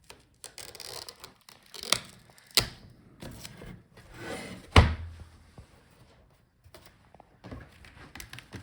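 Small clicks and knocks of hands working inside an opened laptop: the video cable connector being unplugged from the LCD panel and the old panel lifted out. One louder thunk comes a little under five seconds in.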